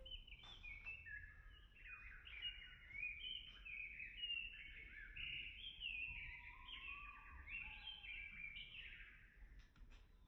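Several birds singing and chirping at once, a busy chorus of overlapping short, mostly falling high notes that thins out near the end, over faint low background noise.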